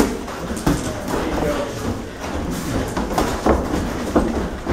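Several sharp thuds of boxing gloves landing during sparring, over a murmur of onlookers' voices.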